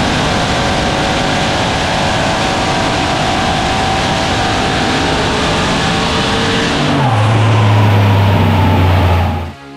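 Holden Commodore ute's engine running hard under load on a chassis dyno, loud and steady. About seven seconds in the note drops to a deeper, steadier drone, then the sound cuts off suddenly near the end.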